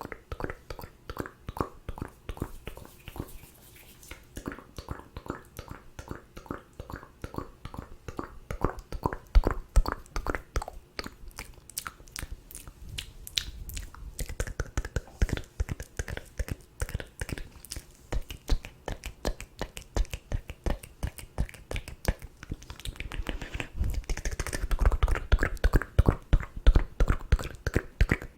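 Close-miked ASMR mouth sounds: a dense, continuous run of wet tongue and lip clicks and smacks, louder over the last few seconds.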